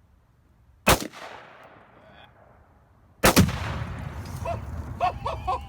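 Two AR-15 rifle shots about two seconds apart. The second sets off a one-pound Tannerite target: a loud blast with a long low rumble that trails on.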